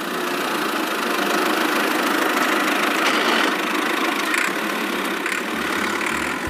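Steady tractor-engine running noise for a toy tractor pulling trolleys, with a deeper rumble coming in about five seconds in.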